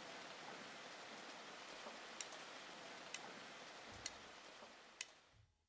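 Faint steady hiss with sharp single ticks about once a second, four of them, all fading out near the end.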